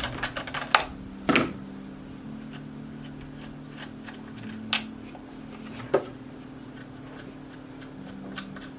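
A few sharp clicks and knocks of a tool and metal parts being handled on a chainsaw as its cover is taken off: a quick run of clicks at first, a knock about a second in, then single clicks with long gaps, over a steady low hum.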